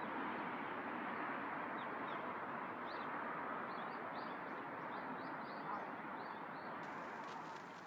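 Steady outdoor background hiss with a small bird calling: a run of short, high chirps in the middle stretch.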